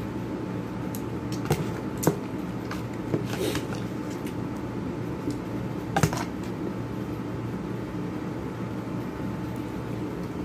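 A metal spoon clicking and scraping against a foil food tray a few times, the sharpest knocks about two and six seconds in, over a steady background hum.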